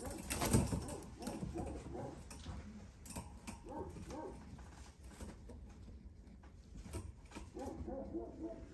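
Pigeons cooing in a wire cage: short, rolling coos in a few bouts, with scattered light clicks between them.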